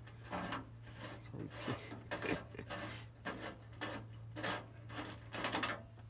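A blade shaving and scraping plastic off the molded base of a camp grill, in short irregular strokes.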